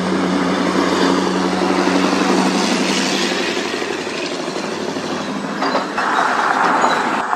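Heavily loaded Scania tractor-trailer truck driving past, its diesel engine running with a steady drone over the rumble of tyres and trailer. The sound changes abruptly about six seconds in.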